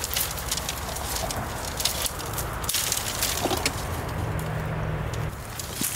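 Dry dead brush stems crackling and rustling as they are handled and pulled through, with many small sharp snaps and clicks throughout.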